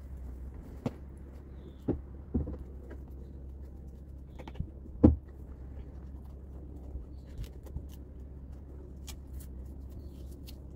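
Scattered knocks and thumps as hoof boots are fitted to a Shetland pony's feet, over a steady low hum. The loudest thump comes about five seconds in, with a few lighter clicks near the end.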